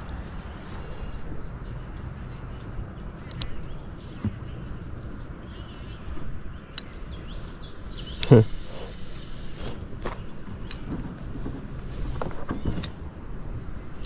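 Scattered clicks, knocks and rustles as a chain pickerel is handled and taken out of a landing net in a kayak, over a steady high-pitched insect drone. About eight seconds in comes one short, loud sound that drops steeply in pitch.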